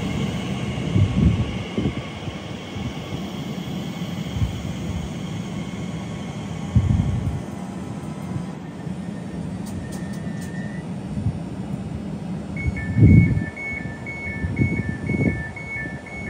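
Elizabeth Line Class 345 electric train standing at the platform with a steady hum from its onboard equipment, broken by a few dull low thumps, the loudest about thirteen seconds in. From about thirteen seconds in, a rapid two-tone beeping starts, the train's door-closing warning before it leaves.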